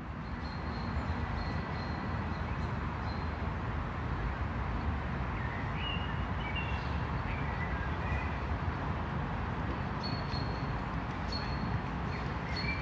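City street ambience: a steady rumble of distant traffic, swelling up over the first second, with birds chirping now and then, mostly in the middle and again near the end.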